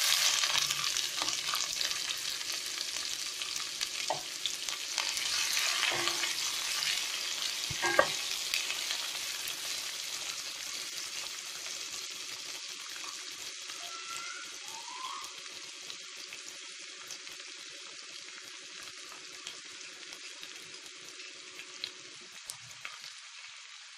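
Chopped onions sizzling in hot oil in a steel kadhai, loud as they first hit the oil and slowly dying down. A few sharp knocks in the first eight seconds.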